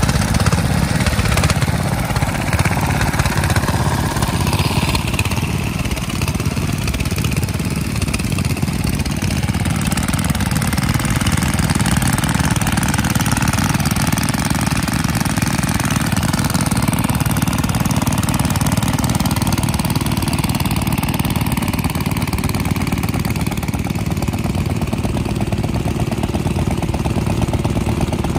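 Small vintage stationary engines running steadily, a continuous mechanical chugging with no break.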